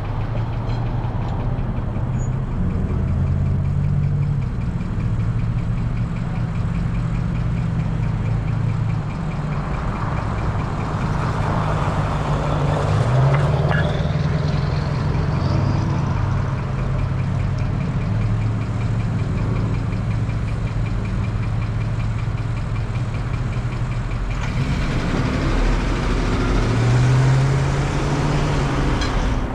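A car's engine running with road noise while driving. The engine note rises in pitch twice, about halfway through and near the end.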